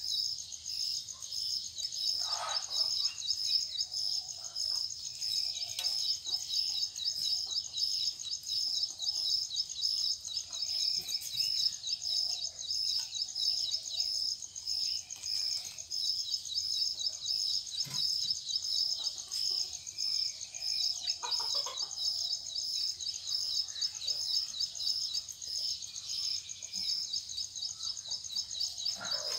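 Steady high-pitched chirping, repeating evenly a few times a second over a continuous high hiss.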